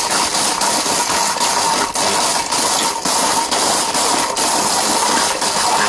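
Orpat 1600-watt steel-bush mixer grinder running at full speed, grinding a chunk of brick to powder in its small stainless-steel jar. It gives a loud, steady whine with irregular knocks from the brick pieces hitting the jar.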